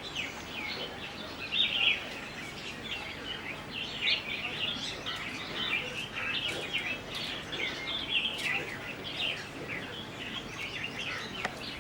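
A group of sparrows chirping, many short chirps overlapping continuously.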